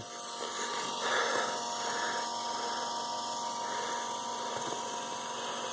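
Small 12-volt DC gear motor running with a steady whine, turning its pulley to lower a plywood chicken coop door along its track.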